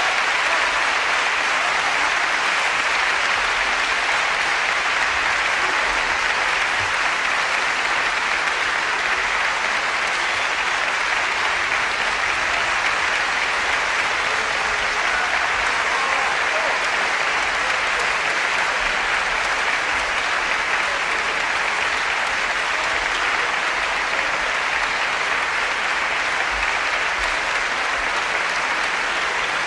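Audience applauding, a steady, sustained clapping.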